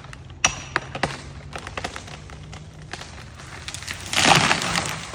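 Wood cracking and popping several times as a felled tree goes over, then a loud crash of the trunk and branches hitting the ground about four seconds in.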